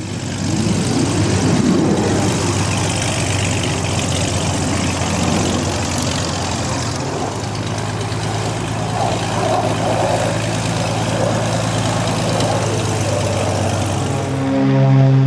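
XtremeAir XA41 aerobatic monoplane's piston engine and propeller running at low power while it taxis, a steady drone. The sound grows louder near the end.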